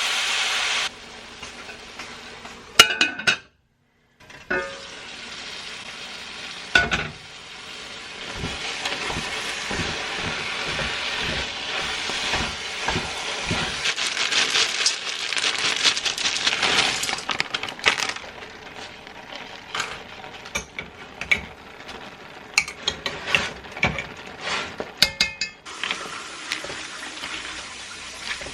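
Cooking in a Caraway non-stick pan: ground turkey and vegetables sizzling, with a spoon clinking and scraping against the pan as they are stirred. A steady hiss fills the middle, then a run of sharp clinks and knocks comes near the end, with a brief silent break a few seconds in.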